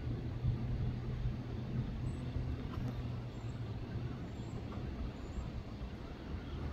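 Steady low rumble of a freight train's loaded trash cars rolling over jointed track as the tail of the train pulls away.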